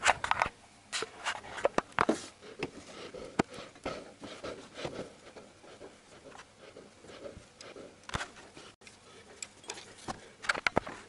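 Irregular small clicks and knocks of a bolt and the alternator tensioner bracket being handled and fitted by hand, with a louder knock a little after eight seconds and a cluster near the end.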